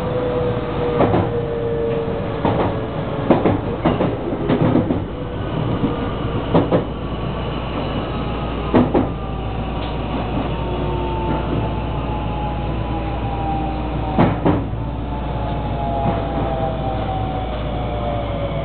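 JR West 223 series 2500 electric train running, heard from the front cab. Its motor whine falls steadily in pitch as the train slows. Sharp clacks from the wheels crossing rail joints and points come about eight times, most of them in the first nine seconds.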